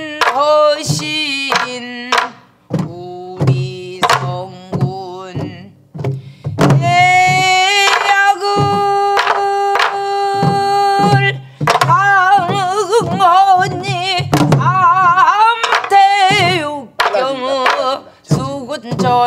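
A woman sings a Korean folk song with wavering, long-held notes while beating out the rhythm on a sori-buk, the barrel drum of pansori. A wooden stick strikes both the drum head and its wooden rim, giving sharp knocks through the singing.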